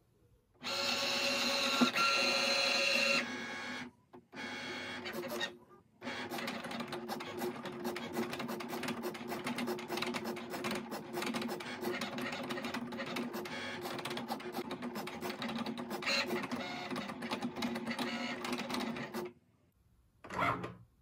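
Cricut Maker cutting machine cutting permanent vinyl with its fine-point blade: the motors whir and whine with a fast ticking as the carriage and mat move. It runs in three stretches with short pauses: a louder one of about two and a half seconds, a short one, then a long steady run of about thirteen seconds that stops shortly before the end.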